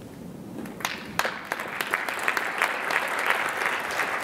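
Audience applauding: a few claps about a second in, quickly filling out into steady clapping from many hands.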